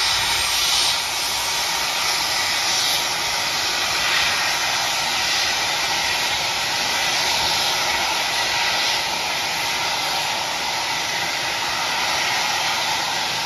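Steam hissing steadily from BR Standard Class 9F steam locomotive 92134 standing at a shed, a strong, even rush of escaping steam that swells slightly now and then.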